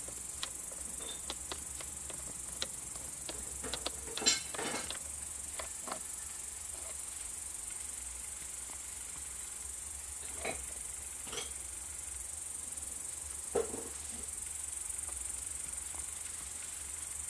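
Scattered light clicks and knocks of metal and plastic parts as the pinion gear assembly of a Briggs & Stratton electric starter motor is handled, with a small cluster about four seconds in. Behind them is a steady high-pitched chirring of insects.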